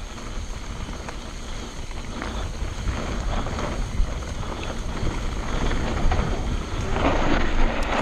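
Wind buffeting the bike-mounted camera's microphone over a mountain bike's tyres rolling on a dirt and stony trail, with scattered clicks and rattles from the bike. The noise grows louder over the last few seconds as the bike picks up speed.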